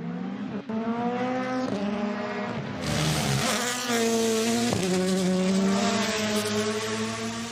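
Race car engine accelerating hard up through the gears. Its pitch climbs and drops back at each of several quick upshifts.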